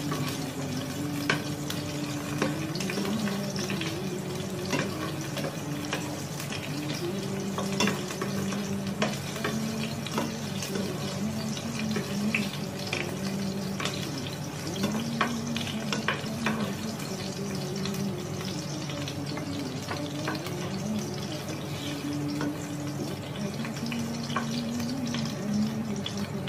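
Cubed potatoes sizzling in butter in a non-stick frying pan, with a wooden spoon stirring them and knocking and scraping against the pan again and again.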